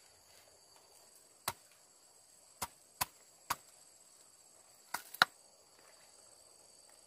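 Machete chopping into a section of bamboo: seven sharp chops at uneven intervals, the last three in quick succession about five seconds in. Insects chirr steadily behind.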